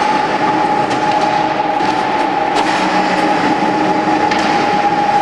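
Steady, loud mechanical running noise with a constant high hum and a few faint clicks.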